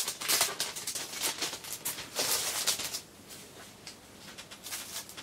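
LP record sleeve being handled and opened, a run of papery rustling and sliding, busiest in the first three seconds and fainter after.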